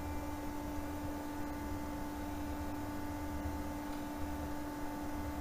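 Faint steady room tone: a constant electrical hum made of two steady pitches, one low and one higher, over a soft hiss and low rumble.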